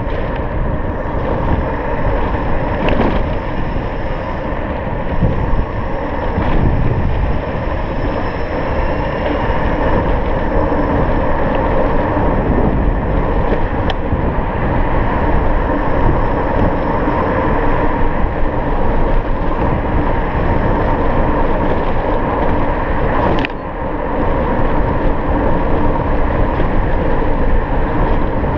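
Steady wind and road noise from an electric scooter riding along a street at speed, with a faint steady whine underneath. A sharp click comes near the end.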